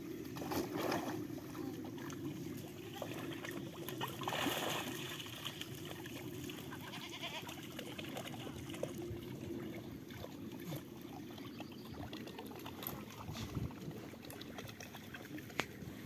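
Water trickling steadily into a stone livestock trough, with goats bleating twice: once near the start and again about four seconds in.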